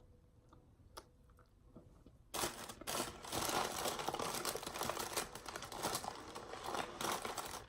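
Takeout food packaging being handled, crinkling and rustling continuously from about two and a half seconds in, after a single soft click about a second in.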